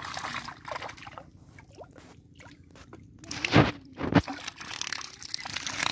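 Shallow muddy water sloshing and splashing as hands work in it, with two loud heavy splashing hits about half a second apart near the middle.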